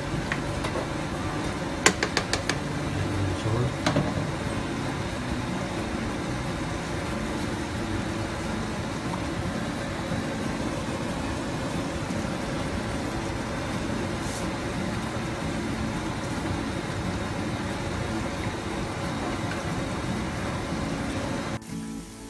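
Chicken simmering in a pan of spiced sauce, a steady bubbling noise, with a few sharp clicks about two and four seconds in. The sound drops away abruptly near the end.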